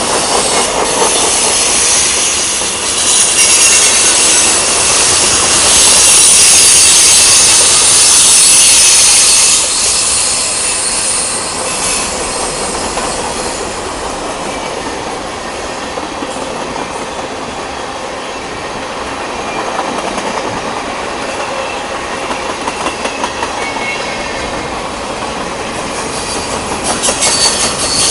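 Freight train cars rolling past at close range: continuous loud rumble and rattle of steel wheels on the rails, with a bright high-pitched wheel squeal and hiss that is loudest for the first ten seconds or so, eases, and builds again near the end.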